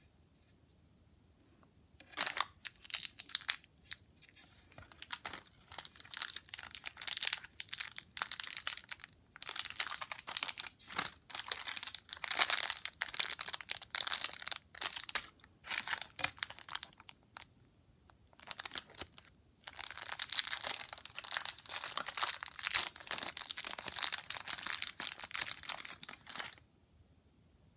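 Plastic candy wrappers crinkling and tearing as they are handled and opened. The noise comes in bursts with short pauses, starting about two seconds in and stopping shortly before the end.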